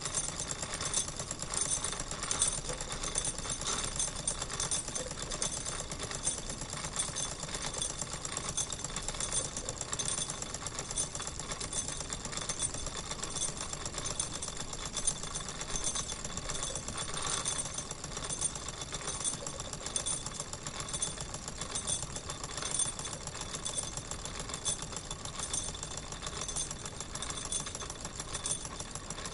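Wilesco toy live-steam engine running steadily, a rapid even mechanical beat with steady high-pitched tones above it.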